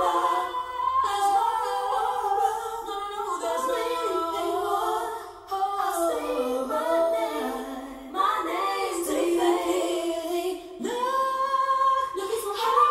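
A cappella vocal music, voices singing in harmony, played over a Porsche 911 Carrera S's high-end audio system.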